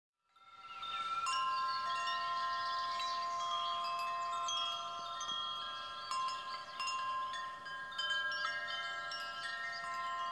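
Wind chimes ringing: many metal tones at different pitches struck at irregular moments, each ringing on and overlapping the others. The sound fades in over the first second.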